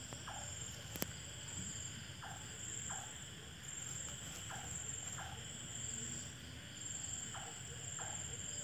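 Night insects, crickets, trilling steadily in a high band that swells and fades. Short falling chirps come in pairs every couple of seconds, and there is one sharp click about a second in.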